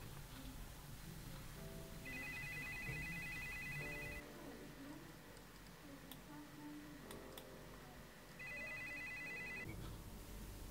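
A telephone ringing with a fast electronic trill, two rings of about two seconds each, a few seconds apart, over faint background music. A few faint clicks fall between the rings.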